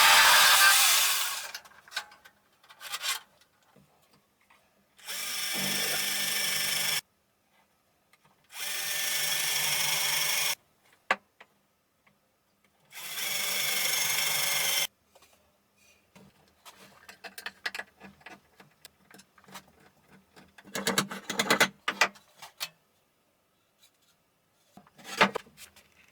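An electric power saw runs in three short bursts of about two seconds each, switching on and off abruptly, after a louder stretch of running that dies away about a second and a half in. In the second half, irregular clicking and clattering of wood and tool, with a brief final burst near the end.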